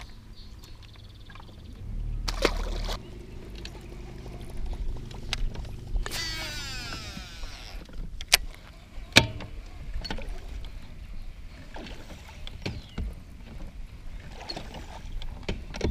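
A baitcasting reel's spool whirring out during a cast about six seconds in, its pitch falling as the spool slows, among sharp clicks and knocks of rod and tackle handling.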